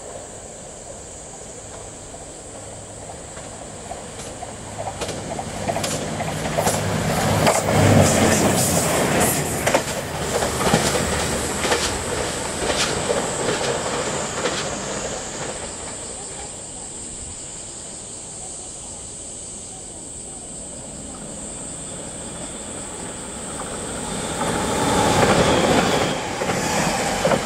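A JR Shikoku 2000 series diesel limited express passing at speed: diesel engines running and wheels clattering over rail joints, loudest about eight seconds in, then fading. About 25 seconds in, an 8600 series electric limited express passes close by with a second swell of wheel and rail noise.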